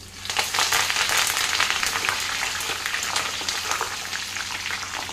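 Fresh curry leaves, roasted chana dal and raisins deep-frying in hot oil: a dense, crackling sizzle that starts just after the beginning and eases a little toward the end.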